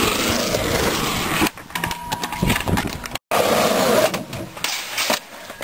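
Skateboard wheels rolling over concrete with a rushing rumble, and a few clacks of the board in between. The sound cuts out for an instant about three seconds in, then the rolling picks up again before quieting to scattered clicks.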